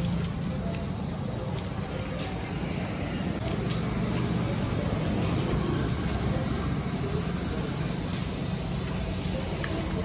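A vehicle engine running steadily with a low, even rumble.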